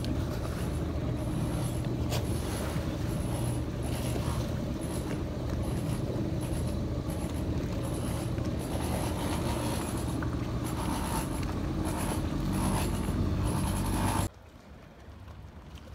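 Boat engine running steadily with a low rumble, a faint high-pitched whine pulsing on and off above it. It cuts off abruptly about fourteen seconds in, leaving a much quieter wash of wind and water.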